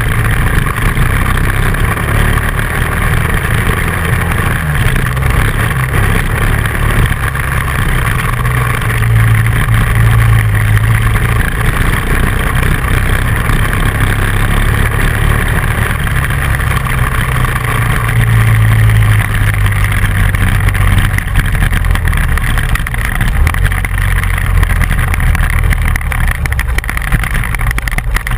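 Dual-sport motorcycle engine running under way on a dirt road, with a steady rushing noise over it. The engine note swells twice, about a third and about two thirds of the way through.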